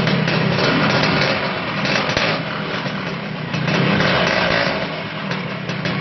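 Suzuki RS100 two-stroke single running in place through an aftermarket 20-cut 'banana' expansion-chamber exhaust, revved up and down with the throttle.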